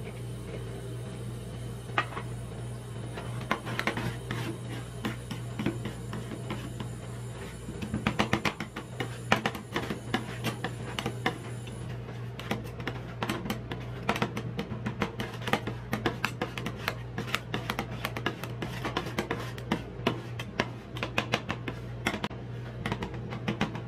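Metal spatulas chopping and scraping on a frozen stainless-steel rolled-ice-cream plate. The sharp, irregular clicks get busy about eight seconds in, over the steady low hum of the cold plate's refrigeration machine.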